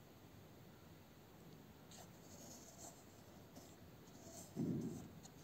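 Drawing compass with pencil scratching faintly on paper while a circle is drawn, with a soft low thump near the end.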